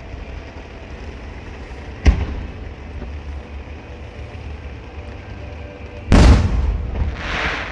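Firework explosions: a sharp single bang about two seconds in, then a louder, longer blast about six seconds in, followed by a hissing rush that fades.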